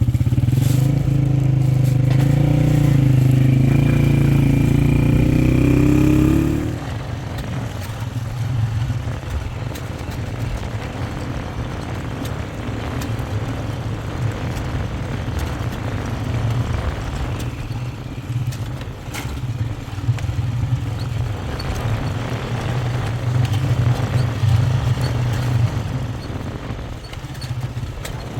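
Motorcycle engine running under way: it rises in pitch as it accelerates for the first six seconds or so, then drops to a lower, steadier running sound that wavers in level.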